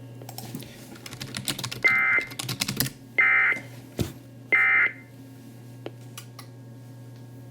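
Three short bursts of Emergency Alert System SAME data tones, a buzzy warble near 2 kHz, each under half a second and spaced a little over a second apart: the End of Message signal that closes the alert. Scattered clicks come in the first few seconds, over a steady low hum.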